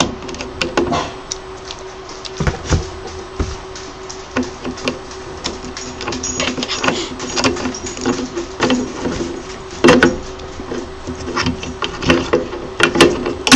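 Scattered clicks and small knocks of an Allen key and loose metal parts as the screws holding a cooling fan on a resin printer's heatsink are undone, over a steady low hum.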